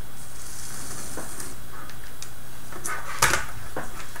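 Small plastic robot-kit parts handled on a wooden table: a soft rustle and a few light clicks, then a sharper clack about three seconds in as the claw assembly is set down, followed by one more click.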